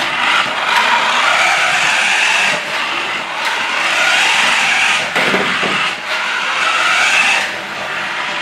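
Radio-controlled Porsche 918 Spyder toy car driving on a hardwood floor: its small electric drive motor and gears whir steadily, swelling and easing a few times as it speeds up and turns.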